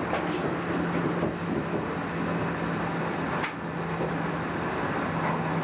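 Train running at speed, heard from the driver's cab: a steady rolling noise with a low steady hum under it, and one sharp click about three and a half seconds in.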